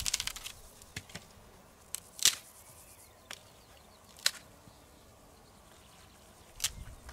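Wood being worked by hand: a few short, sharp snapping sounds a second or two apart, the loudest about two and four seconds in, with quiet between.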